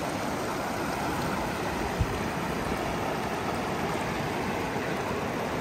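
River water rushing steadily over rocks, with a brief low thump about two seconds in.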